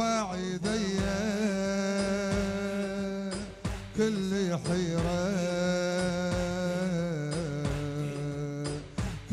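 Men chanting a bandariya, an Iraqi Shia religious chant, into microphones. Their lines are long and drawn out and waver in pitch, over a steady low drone, with sharp hand claps at intervals.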